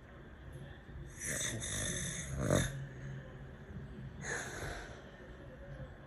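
Snoring in sleep: a long, rasping breath that ends in a loud, low snort about two and a half seconds in. Another shorter snoring breath follows about four seconds in.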